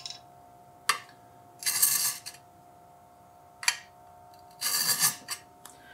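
Mill file drawn across the fitment tabs of an LMT MARS-H upper receiver in two short rasping strokes, each a sharp click followed by about half a second of scraping. The tabs are being filed down so the upper fits the lower without overly tight takedown pins.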